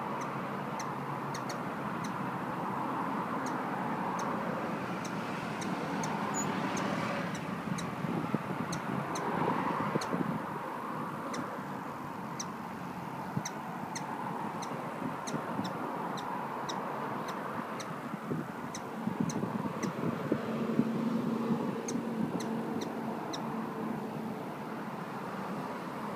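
Hummingbird chipping: short, high chirps repeated irregularly, a few a second, over a steady hiss that grows louder twice.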